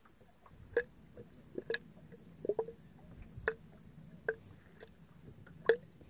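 Small waves slapping against a boat's hull: a string of short, sharp knocks at irregular intervals, roughly one a second.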